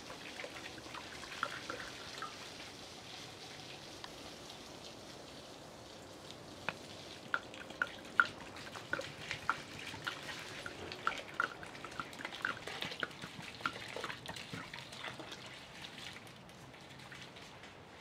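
Rice being rinsed by hand in a plastic basin while water pours from a clay jug onto it: a steady pour with many small splashes and drips as the hands work the grains in the water, busiest through the middle.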